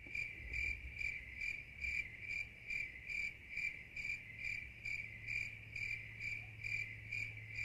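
Soft, cricket-like chirping: one high tone repeating evenly about two and a half times a second. It is the quiet opening of a ringtone.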